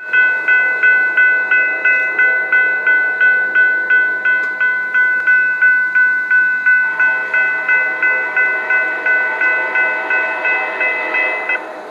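Railroad grade-crossing warning bell ringing steadily at about three strokes a second, warning of an approaching train; it stops abruptly near the end.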